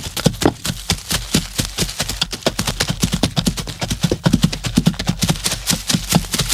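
A fast, uneven clatter of sharp knocks, several a second, like hooves clip-clopping at speed.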